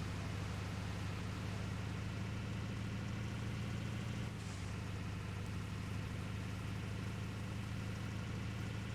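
Water truck's engine running steadily under way, a low, even drone; the engine note drops slightly about four seconds in.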